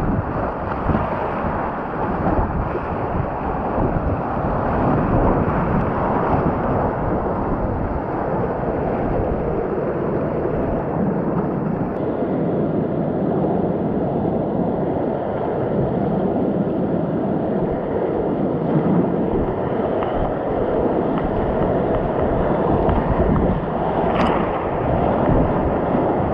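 Whitewater rapids rushing and splashing around a kayak as it runs the river, with wind buffeting the microphone. There is a brief sharp knock near the end.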